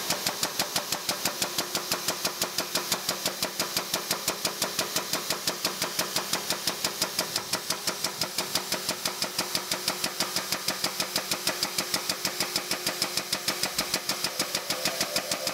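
Air-over-hydraulic jack on a shop press pumping under load, a steady rapid chatter of about five pulses a second, as it presses an old shaft out of a flat belt pulley hub. It is short of air pressure because the shop air compressor had been switched off.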